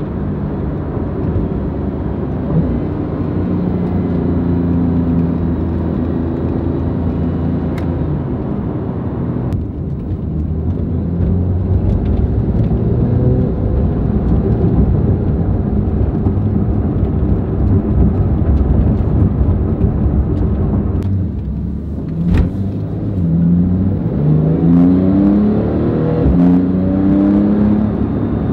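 A 2017 Porsche 911 Carrera S's twin-turbo flat-six, fitted with Fabspeed high-flow downpipes and a tune, running under way. Near the end the engine note rises in several short climbs, one after another, each dropping back before the next.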